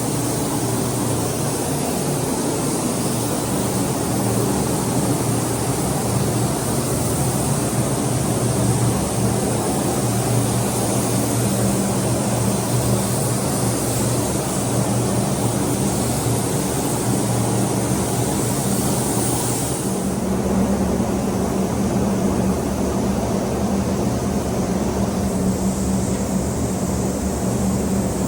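A steady machine drone: a low hum under a high hiss, with the hiss dropping away about twenty seconds in.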